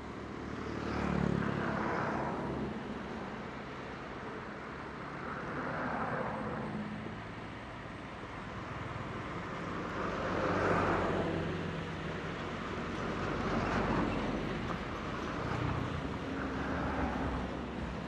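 Bulldozer's diesel engine running, its sound swelling and easing about every four seconds with a rush of higher noise over a steady low hum.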